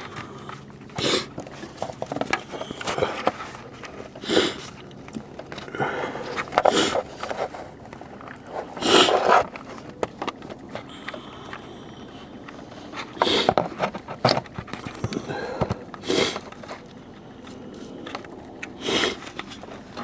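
Hands rummaging and scraping among cables and hoses in a car's engine bay, broken every few seconds by a short, loud sniffing breath.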